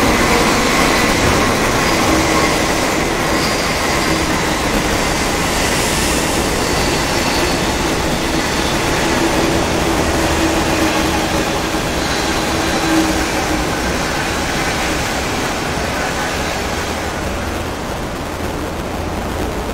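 Intercity through train of 25T passenger coaches, hauled by an SS8 electric locomotive, running through the station at speed: a steady rumble of wheels on rail that slowly fades near the end as the last coaches pass.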